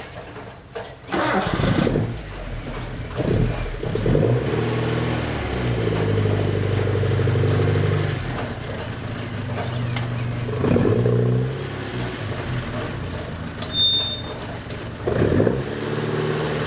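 Alfa Romeo Giulia Super's twin-cam four-cylinder engine, running on a newly fitted 123 electronic ignition, catches within the first two seconds. It is then revved in short blips several times, falling back to a steady idle between them.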